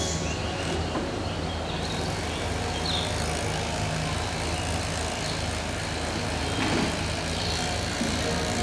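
A steady low engine hum from a running vehicle or machine.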